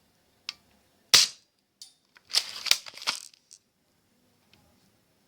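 Airsoft pump-action shotgun firing once with a sharp crack about a second in, then the pump being racked with a clattering run of clicks lasting about a second, and a few light ticks.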